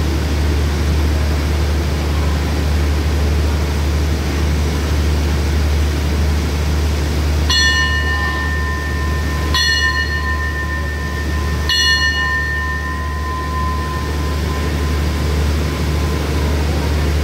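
A bell struck three times, about two seconds apart, each stroke ringing on over the steady low hum of the standing diesel-hauled express train.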